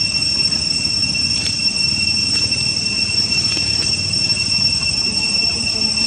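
A steady, high-pitched insect drone, typical of a cicada chorus, holding one unbroken pitch with a fainter higher overtone, over a continuous low rumble.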